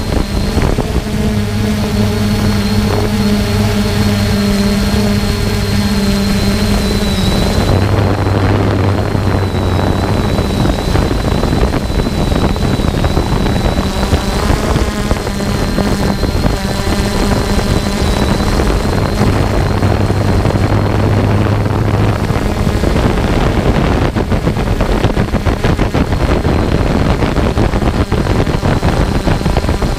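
3DR Solo quadcopter's electric motors and propellers, heard up close from the onboard camera: a loud steady buzz with a thin high whine over it. Its low hum shifts in pitch as the motors change speed, most clearly about eight seconds in.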